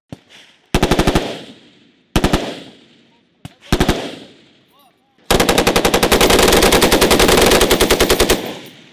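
Tripod-mounted belt-fed machine gun firing several short bursts, then one long burst of about three seconds; a fading echo trails each burst.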